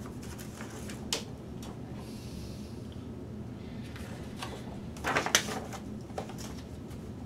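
Clicks and knocks of telescope mount and tripod parts being handled during assembly: a single click about a second in, then a louder short clatter about five seconds in and one more click soon after, over a steady low hum.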